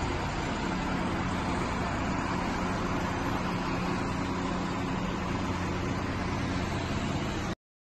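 A convoy of military trucks and cars driving past on a city street: steady engine rumble and tyre noise. It cuts off suddenly near the end.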